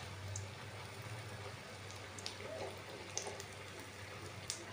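Beef bondas deep-frying in hot oil in a kadai: a faint, steady sizzle with a few scattered small crackles.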